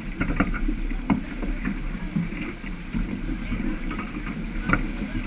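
Wind on the microphone and water rushing past the hull of a J/105 sailboat under way upwind, a steady low rumble with a few sharp clicks and knocks from the deck gear.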